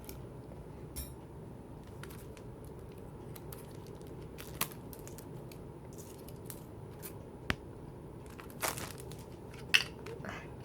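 CD packaging and small paper inserts being handled and torn open by hand: scattered sharp clicks and short crinkling rustles, the loudest snap near the end.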